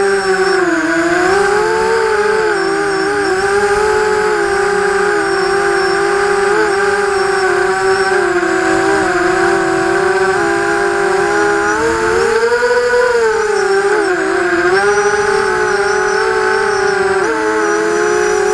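ImmersionRC Vortex 250 racing quadcopter's brushless motors whining as heard from the onboard camera, the pitch rising and falling with throttle changes, with a marked climb in pitch about two-thirds of the way through.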